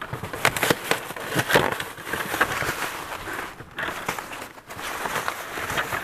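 Rummaging through a boat's storage compartment: a plastic bag rustling and gear knocking and clattering, with many small sharp clicks.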